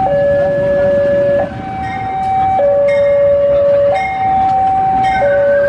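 A two-tone hi-lo warning tone, alternating between a lower and a higher pitch about every one and a half seconds, over the steady rumble of a passing train, with a few sharp clicks.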